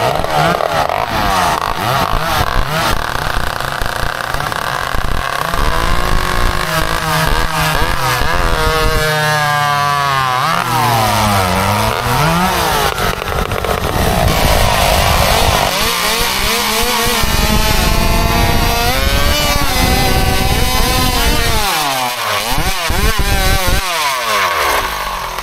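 Modified two-stroke racing chainsaws at full throttle, cutting through a squared timber beam. The engine pitch rises and falls again and again as the saws bog in the cut and rev free, with more than one saw running at times.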